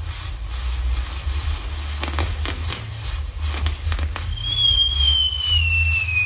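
Fireworks tower (castillo) burning: a run of crackling and popping sparks over a steady low rumble. About four seconds in, a high firework whistle starts and slowly falls in pitch.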